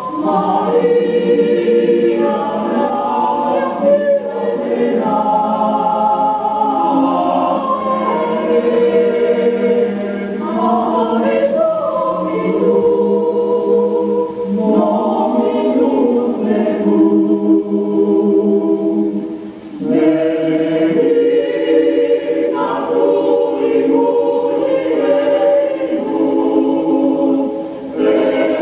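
University choir singing, voices held on long sustained notes, with short breaks between phrases about two-thirds of the way through and near the end.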